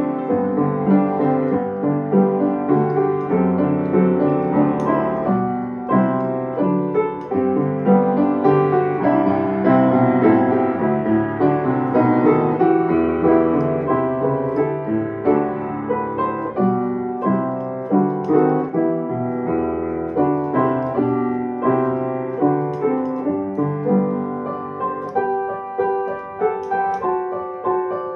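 Solo piano music, played continuously with many notes over low bass notes.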